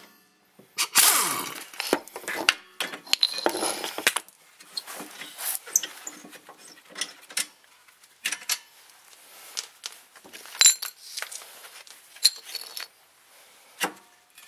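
Scattered metallic clinks and knocks of hand tools and loose bolts as a car's rear brake caliper mounting bracket is unbolted and worked free, with a longer scraping stretch about a second in.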